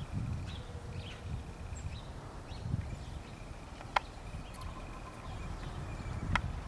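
Outdoor ambience dominated by gusts of wind buffeting the microphone, with two sharp clicks, one about four seconds in and one near the end.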